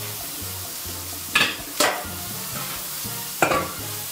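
Diced carrot, celery and onion frying in oil in a stainless steel pot, a steady sizzle. Three sharp clicks stand out, at about one and a half, two and three and a half seconds in.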